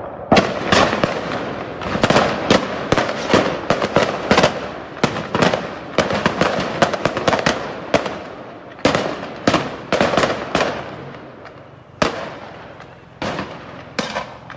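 Strings of firecrackers going off: many sharp bangs in quick succession, coming in bursts with short lulls between them.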